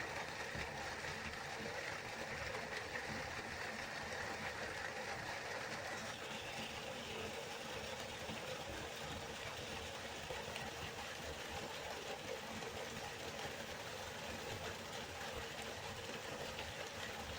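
Waterfall: falling water rushing in a steady, even hiss, its tone shifting slightly about six seconds in.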